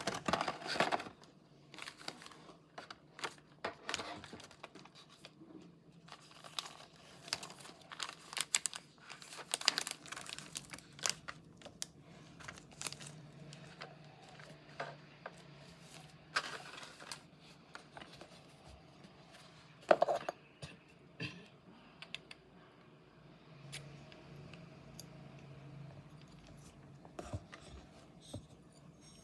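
Packaging being handled and opened: paper and plastic rustling and crinkling, with scattered clicks and taps, two louder knocks about a second in and about twenty seconds in.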